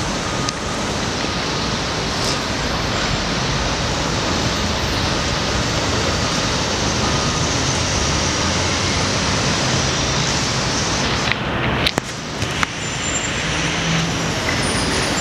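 Steady street traffic noise with dump trucks' diesel engines idling in a queue, and a few brief knocks near the end.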